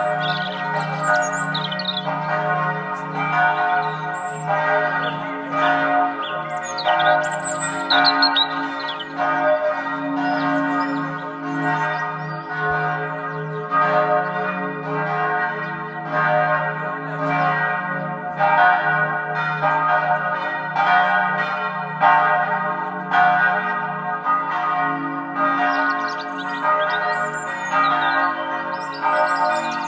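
Bells ringing in a continuous peal, struck again and again, with birds chirping high above them near the start and the end.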